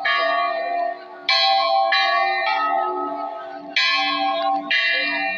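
Temple bells struck about five times at uneven intervals, each strike ringing on with several steady tones that overlap the next.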